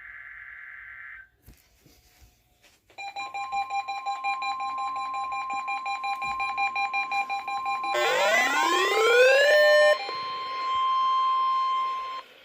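Several NOAA weather radio receivers going off during the weekly test. A buzzing alert ends about a second in, and after a short pause the steady 1050 Hz warning alarm tone sounds together with a receiver's pulsing beeps. About eight seconds in, a rising siren sweep joins them, and near the end the alarm tone sounds alone, then cuts off.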